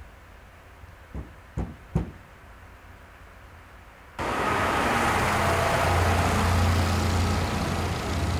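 Three short knocks over a quiet background, then an abrupt switch to a fire engine's diesel engine running loudly, with a steady low hum under a broad hiss.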